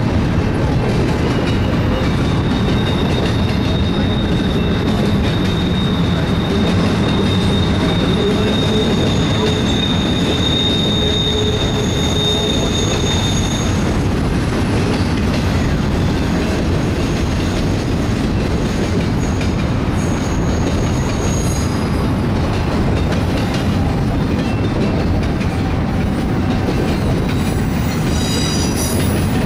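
A double-stack intermodal freight train of well cars rolling past, with a steady rumble of steel wheels on the rails. A thin, high-pitched squeal from the wheels starts about two seconds in and fades out near the middle. A shorter, higher squeal comes a few seconds later.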